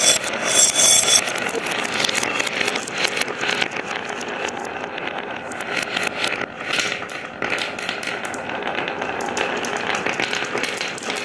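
Marbles rolling and clattering down a marble run: a steady rattle full of quick clicks as the marbles knock along the track.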